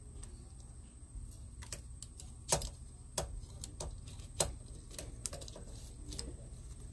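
Irregular sharp metallic clicks, about ten of them and loudest about 2.5 and 4.4 seconds in, as a chainsaw chain is handled in a red clamp-on bar-mounted chain sharpener.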